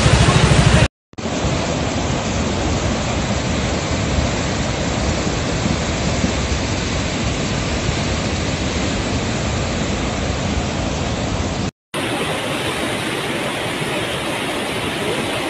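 Floodwater rushing in a steady, loud torrent. Two short drop-outs to silence, about a second in and near the end, break it where different recordings are joined.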